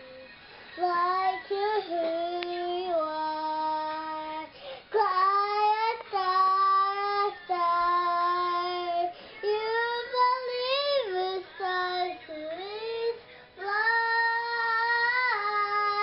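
A young girl singing unaccompanied, holding long notes in a string of short phrases with brief breaks between them.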